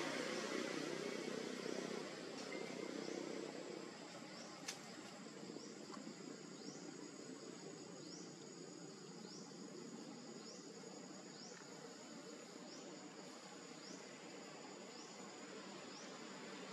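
Insects calling in the trees: a steady high-pitched buzz, with a short rising chirp repeating about every second and a third, over faint outdoor ambience. One sharp click sounds a little before the five-second mark.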